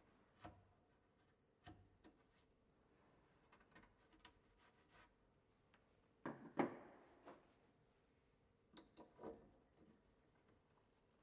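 Quiet chisel work on the timber edge of a door, cutting the shallow recess for a mortice latch faceplate: scattered faint taps and scrapes, with a louder scraping cut about six seconds in and another near nine seconds.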